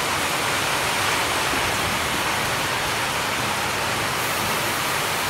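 Pork sizzling and crackling on a wire grill over hot charcoal: a steady hiss.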